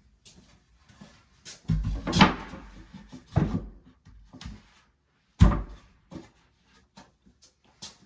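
Hard items being handled and set down: a string of knocks and clunks, heaviest about two and five and a half seconds in, with lighter clicks between.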